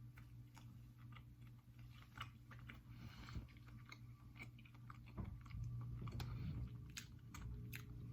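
Person biting into and chewing a soft filled croissant: faint mouth sounds with many small clicks, over a steady low hum.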